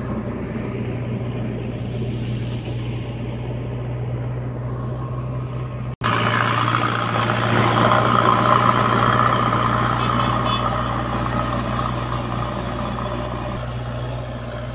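JCB backhoe loader's diesel engine running steadily. About six seconds in, the sound cuts out for an instant and comes back louder.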